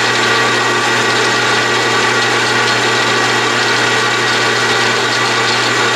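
Atlas/Craftsman 12-inch metal lathe running loud and steady in reverse, its motor, belts and gearing driving the carriage back along the leadscrew with the half nut engaged. This is the return stroke that brings the threading tool back to the start of the thread.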